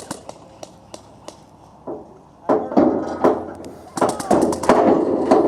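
Airsoft guns firing: scattered single shots, then a rapid full-auto burst of about ten shots a second starting about four seconds in.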